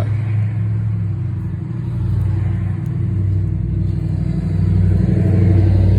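An engine running steadily: a low, even hum that gets a little louder about two seconds in and again near the end.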